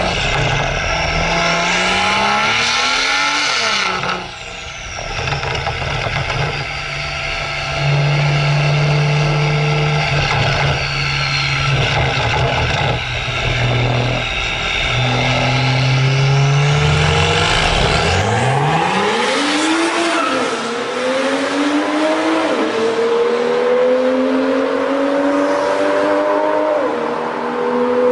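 BMW F87 M2's turbocharged straight-six through a Fi Exhaust turbo-back valved exhaust, revved and held at steady revs. About two-thirds of the way through it gives way to a long climb in revs, broken by several short drops in pitch like gear changes.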